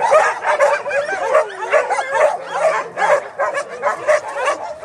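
A crowd of dogs barking, yipping and whining all at once, many voices overlapping without a break, with one longer sliding whine about a second and a half in.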